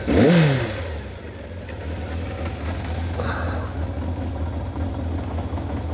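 Kawasaki Zephyr 750's air-cooled inline four-cylinder engine: revs drop back from a throttle blip in the first second, then it idles steadily.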